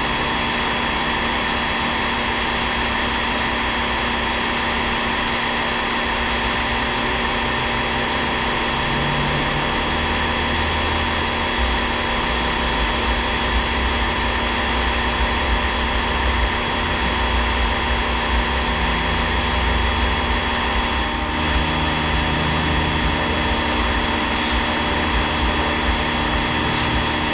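Electric pressure washer running steadily: a constant motor whine with the hiss of its water jet spraying onto a car.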